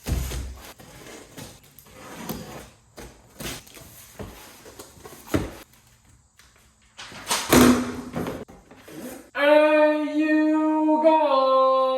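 Scattered knocks and clatter of objects being handled and set down, the loudest a sharp knock about seven and a half seconds in. Then a drawn-out whine-like tone holds steady for a second or two and steps down in pitch.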